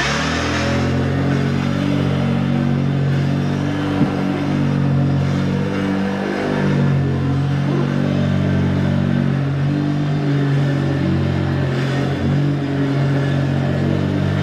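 Vintage Hoover vacuum cleaner switched on, its motor starting abruptly and then running steadily with a low hum of several tones under a rough noise. The owner says it doesn't sound great and thinks the motor may need lubrication.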